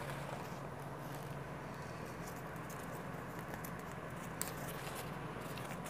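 Folded paper raffle slips rustling as a plastic tub holding them is shaken, then a single slip being unfolded with light crinkling clicks.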